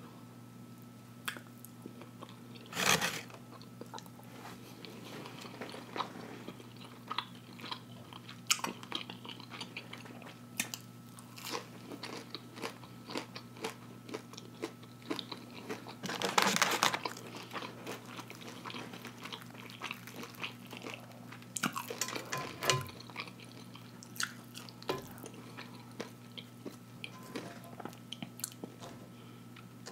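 Close-up chewing and biting of fried catfish in crisp breading: scattered crunches, crackles and wet mouth clicks, with louder, noisier bursts about three seconds in and again just past halfway.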